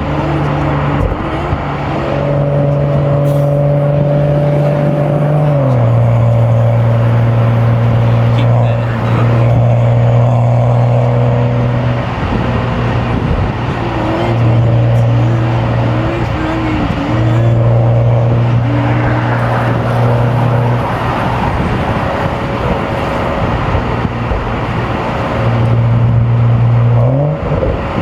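BMW M235i's turbocharged N55 straight-six droning at steady revs while driving. The pitch drops a few seconds in, as after an upshift, and climbs again near the end as the revs rise.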